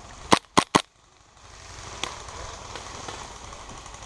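Three quick shots from a gas blowback airsoft gun fired close by, a little under a quarter second apart, each a sharp crack.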